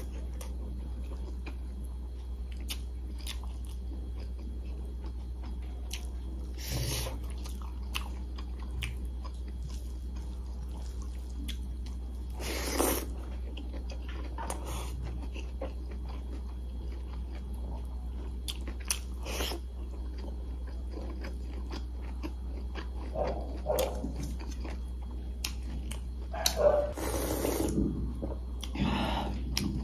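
Close-miked eating: a person chewing and biting chicken on the bone, with a few sharp crunches and mouth smacks spaced several seconds apart. Near the end comes a denser, louder run of sounds: sipping soup from a bowl.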